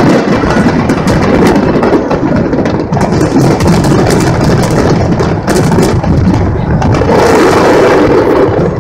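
Fireworks: a dense, continuous barrage of aerial shells bursting with booms and crackle, loud throughout and dropping off right at the end.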